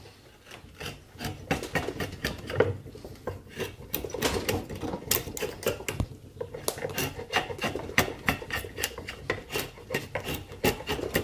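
Drawknife shaving a wooden handle blank clamped in a vise: a run of short, rasping scrapes as the blade pulls thin shavings off the wood.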